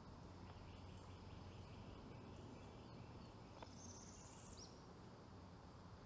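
Near silence: faint outdoor ambience with a few faint bird chirps.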